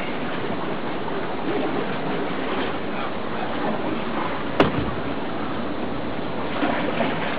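A steady rush of river water around the raft under the rock arch. One sharp knock comes a little past halfway.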